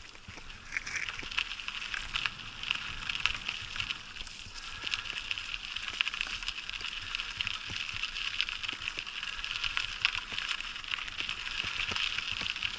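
Bicycle tyres rolling over a fine gravel path, a steady crunch made up of many small rapid clicks.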